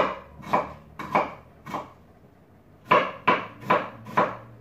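Kitchen knife chopping red onion on a wooden cutting board, each stroke a sharp knock of the blade on the board, about two a second, with a pause of about a second midway.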